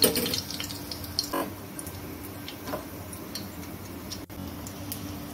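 Batter-coated stuffed spiny gourd frying in hot mustard oil: a sizzling crackle with scattered pops, loudest at the very start just after the piece goes into the oil, then settling to a steadier sizzle.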